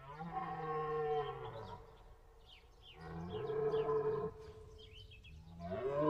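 A large deer bellowing: two long, low calls about a second and a half each that sag in pitch at the end, with a third starting near the end. Small birds chirp between the calls.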